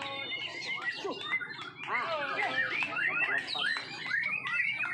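Several white-rumped shamas singing at once, a dense overlapping chorus of loud whistles, sliding notes and quick chirps.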